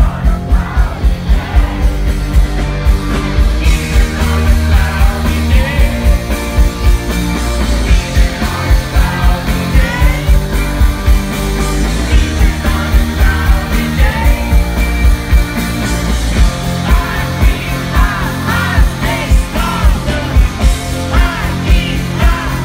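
Live rock band playing loud, with heavy bass and a steady drum beat of about two to three beats a second. A male singer's voice rises over the band from about a third of the way in.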